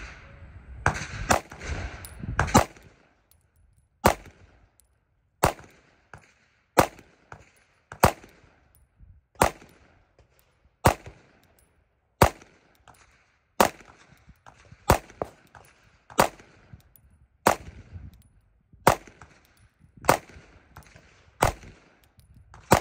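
Glock 19 9mm pistol fired semi-automatically: a quick string of several shots, then steady single shots about every second and a half.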